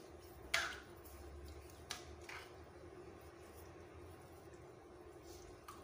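Sliced chicken being mixed by hand and with a spoon in a pot of red tocino marinade: a few short handling sounds, the loudest about half a second in, over a steady low hum.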